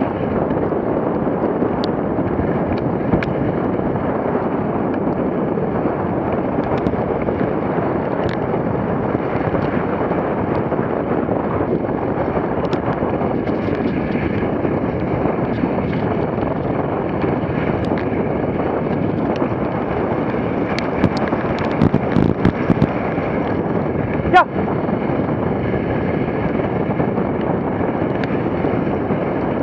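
Steady rushing hiss of a dog sled at speed, its runners sliding over packed snow with wind buffeting the camera microphone. A few light knocks from the sled are heard, the sharpest about three-quarters of the way through.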